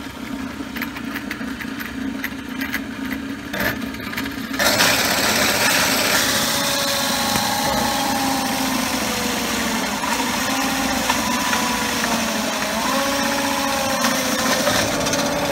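Drill press running with a steady hum, its two-inch hole saw pressed into a B20 bronze crash cymbal. About four and a half seconds in, the saw bites and grinds loudly through the metal, with wavering squeals, to cut a hole.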